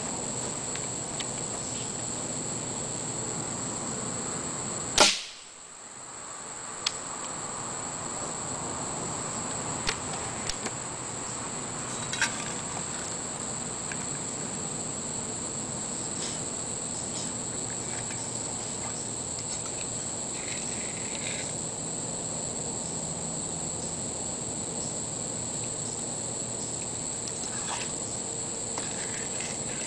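A single sharp pellet gun shot about five seconds in, followed by a few faint ticks. Insects chirr steadily at a high pitch throughout.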